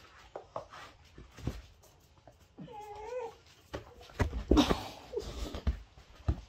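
Dogs scrambling and scuffling on a hard floor with scattered knocks, and a short wavering whine about three seconds in. The loudest part comes about four seconds in, a burst of thumps and scuffling as one dog leaps.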